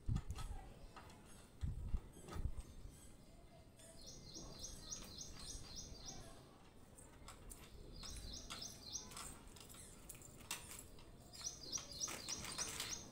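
A few dull knocks in the first couple of seconds as the column formwork box is worked loose from a concrete pillar. Around them, a bird chirps in three quick runs of repeated high notes.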